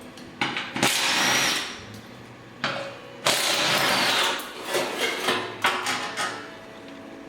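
A power wrench runs in two bursts of about a second each, loosening bolts on the car's drivetrain. Between the bursts come shorter spurts and sharp metallic clicks and clanks of tools on bolts.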